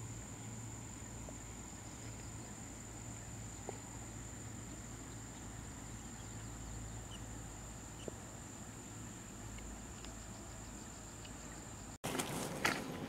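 Insects calling in grassland, one steady high-pitched drone with a low background rumble. Near the end it gives way to footsteps on a stony path.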